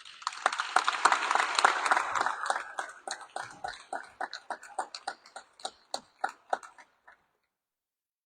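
Audience applauding; the dense clapping thins to scattered single claps and stops about seven seconds in.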